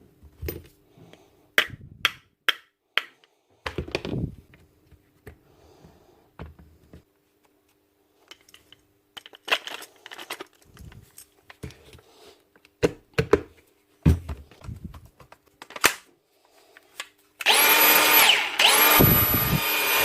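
Clicks and knocks of a Milwaukee cordless brushless power tool being handled, then, near the end, its motor runs at speed with a steady whine that dips briefly a couple of times as the trigger is worked.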